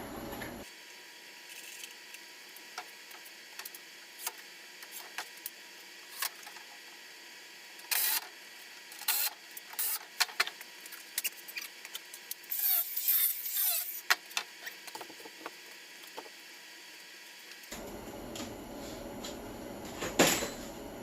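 Scattered light clicks and knocks of shelf-building work, with a short burst of scraping about two-thirds of the way through and a sharper knock near the end.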